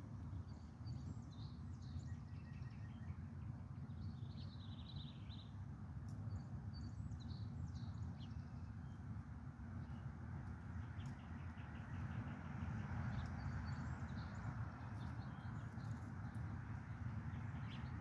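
Songbirds chirping and calling in short scattered bursts throughout, over a steady low background rumble that grows a little louder about two-thirds of the way in.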